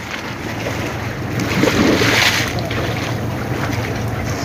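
Wind rushing over the microphone together with the wash of the sea, a steady noisy rumble that swells briefly about two seconds in.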